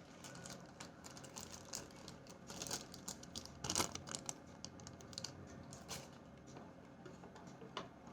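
Irregular light clicks and crinkles of small objects being handled, thickest about midway, with no trimmer motor running.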